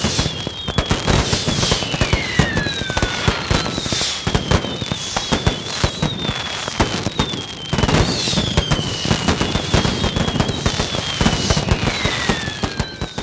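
Fireworks crackling in a dense, continuous barrage, with repeated whistles falling in pitch over it.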